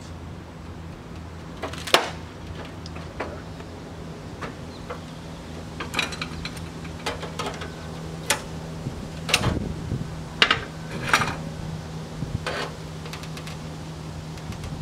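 Hand tools working a steel sheet-metal patch panel: scattered sharp metallic clicks and knocks as locking pliers grip and bend the folded edge, the loudest about two seconds in and a cluster of them midway, over a steady low hum.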